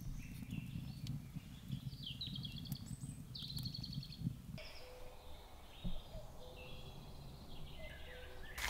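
Forest birds singing: many short chirps and whistled phrases. For the first half a low crackle of a small wood fire runs underneath, then drops away.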